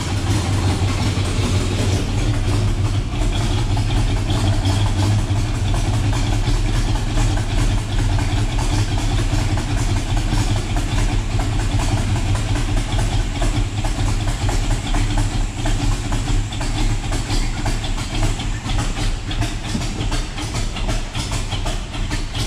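El Camino's engine idling on a newly fitted Holley EFI at its first start, the idle hunting while the EFI self-learns.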